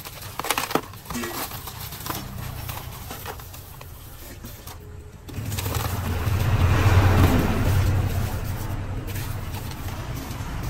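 Crushed ice scooped and scattered by hand over trays of seafood: sharp clicks and crunches near the start, then a spill of falling ice around the middle. From about halfway through, a motor vehicle's engine drones low in the background.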